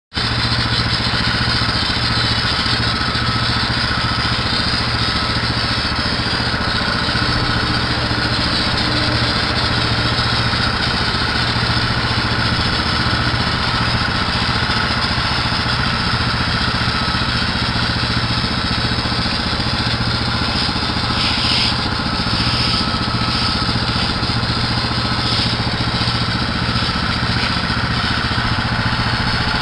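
Small gasoline engine of a piece of paving equipment running steadily at a constant speed, with a steady hiss over it and a few short bursts of hiss near the end.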